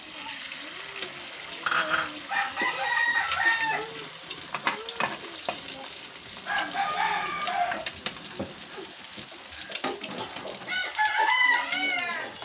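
A rooster crowing three times: about two seconds in, near the middle, and near the end. Under it is food frying in a pan, with clicks from stirring.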